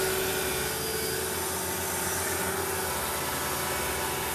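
Mercedes-Benz M113 5.0-litre V8 idling steadily, run after fresh oil has been put in to circulate it before a leak check.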